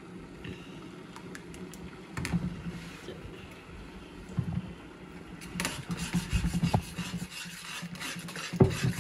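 Metal spatula stirring a thin vegetable gravy in a steel wok, scraping and clinking against the pan in irregular strokes, busiest in the second half, with one sharp knock near the end.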